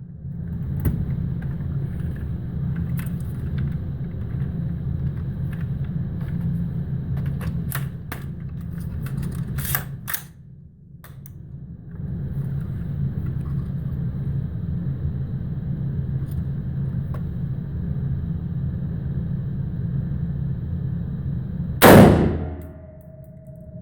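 A single rifle shot near the end, much louder than anything else, with a short ringing tail, over a steady low rumble; a few faint clicks come earlier.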